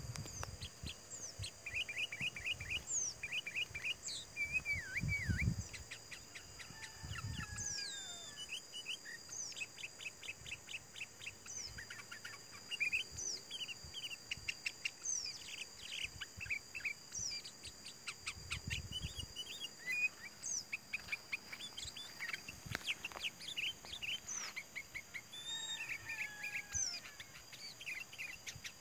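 Sooty-headed bulbuls calling: repeated short chirps and slurred whistled notes, with quick chattering runs of notes, over a steady high-pitched drone.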